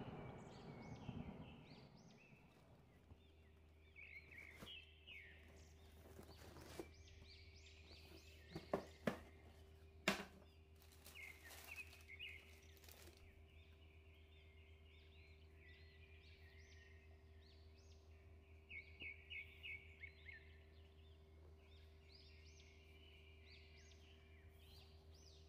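Near silence with a low steady hum and faint birds chirping in the background. The tail of a deep boom dies away in the first two seconds. A few sharp knocks come about nine and ten seconds in, and a quick run of ticks near twenty seconds, from a sneaker and its cardboard shoebox being handled.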